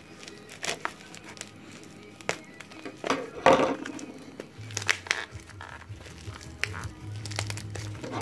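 Background music under the crinkling and clicking of packaging being handled and opened. The loudest crinkle comes about three and a half seconds in.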